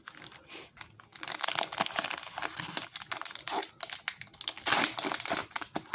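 Foil booster pack wrapper crinkling and being torn open, starting about a second in.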